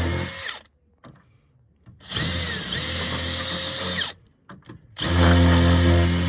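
Power drill pre-drilling pilot holes into roof timber for coach screws. It runs, stops within the first second, runs again from about two to four seconds in, gives a few short blips, then runs steadily from about five seconds in.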